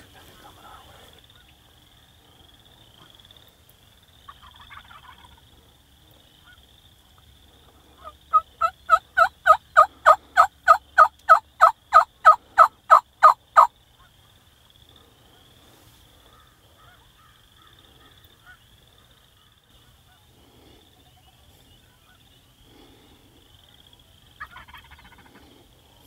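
A run of about eighteen loud turkey yelps, evenly paced at about three a second and lasting some six seconds, each note breaking from a lower to a higher pitch.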